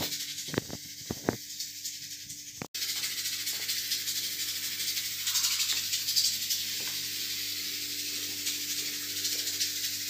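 Background music with shaker-like percussion. It drops out for an instant about a quarter of the way in and picks up again.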